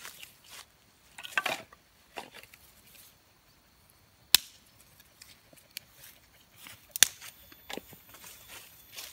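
Dry dead wood being broken by hand: two sharp cracks about three seconds apart, with shorter crackles and rustling of sticks and leaf litter between them.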